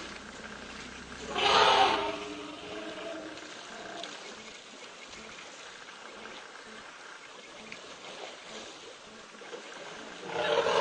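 Elephants calling, two loud calls: one about a second and a half in and one near the end, over a steady trickle of water at a waterhole where a calf is in the water beside the adults.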